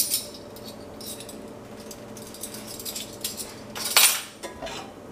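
Metal measuring spoons clinking against a stainless steel frying pan as a spoonful of olive oil is tipped in, with scattered small clinks and a louder clatter about four seconds in as the spoons are put down.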